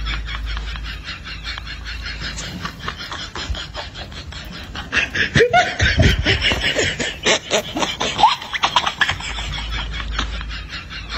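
Rustling and crunching of dry grass and brush underfoot while walking, with a short stretch of laughter about halfway through.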